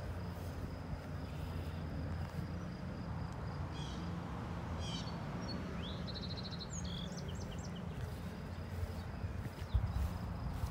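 Rural outdoor ambience: a steady low rumble with a faint high insect buzz, a few short bird chirps around the middle, and footsteps swishing through tall grass near the end.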